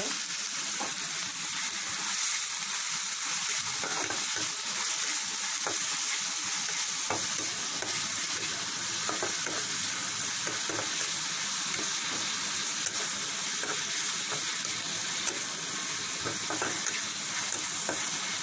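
Onions frying in hot oil in a pan: a steady sizzle, with a few light clicks and two sharper ones in the second half.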